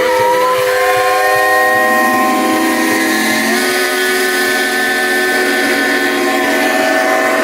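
Many steam whistles on steam traction engines and stationary steam engines blowing at once: a loud, steady chord of overlapping whistle tones over steam hiss, with another lower whistle joining about two seconds in.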